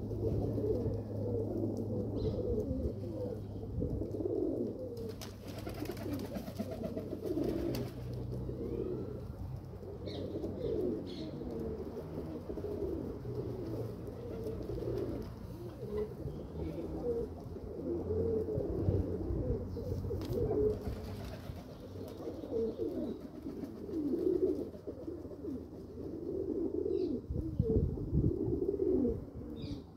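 Domestic pigeons cooing almost without pause, their low rolling coos overlapping one another.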